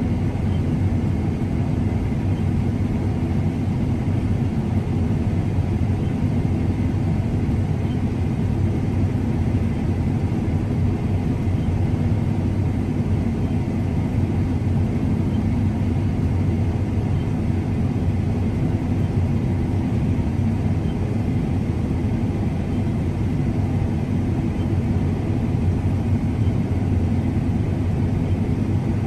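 A large engine running steadily with a low, even drone that does not change throughout.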